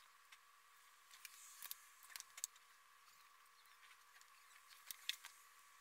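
Near silence broken by a handful of faint, sharp clicks and taps as a plastic ruler and a pen are set down and moved on paper pressed against a window pane, with a brief light scratch of handling.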